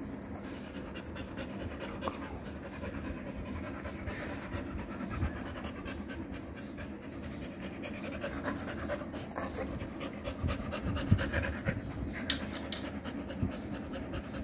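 Rottweiler panting close up, a steady run of quick, breathy pants, with a few louder clicks in the last few seconds.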